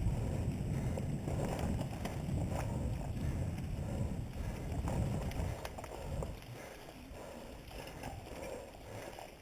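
Mountain bike riding fast down a dirt singletrack: wind buffets the camera microphone in a heavy low rumble, with tyres on dirt and sharp rattles and clicks from the bike over rough ground. The rumble falls away about six seconds in.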